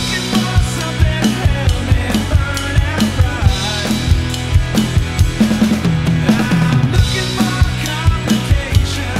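Acoustic drum kit played along to a recorded song: a steady beat of kick drum and snare with cymbal crashes, over the song's bass and melody.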